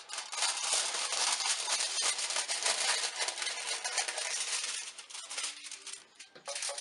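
Aluminium foil crinkling and crackling as scissors cut through a folded sheet pulled from the roll. The crackle eases off about five seconds in, with a short crinkle again near the end.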